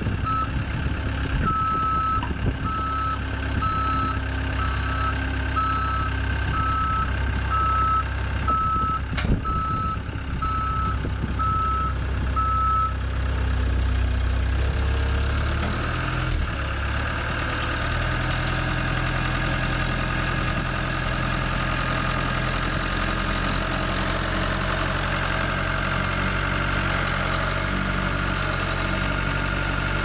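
Cat skid steer's diesel engine running, with its reverse alarm beeping about once a second through the first dozen seconds. Then the beeping stops and a few seconds later the engine note rises and holds steady.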